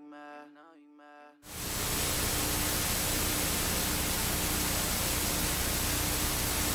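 TV static hiss that switches on suddenly about a second and a half in and holds steady, after the last notes of a song fade out.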